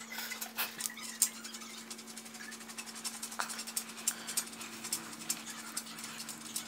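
Faint, irregular clicking and scraping of a motorised curtain rod's drive belt being pushed by hand along its aluminium track, over a steady low hum.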